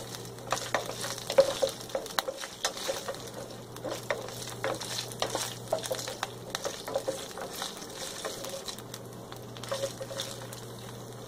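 Fresh green beans frying with a light sizzle in olive oil in a stainless-steel skillet, stirred with a wooden spatula that scrapes and taps against the pan over and over. The stirring taps thin out near the end.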